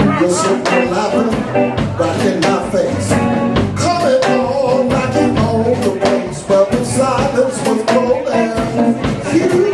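Live blues band playing with drum kit, electric guitar and bass guitar keeping a steady beat.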